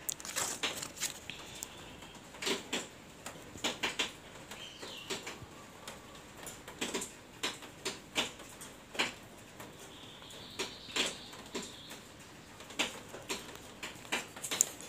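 Irregular light taps and clicks, a fingertip tapping on the glass of small betta tanks, a few a second with short gaps.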